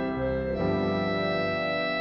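Slow background music of held keyboard chords, changing chord about half a second in.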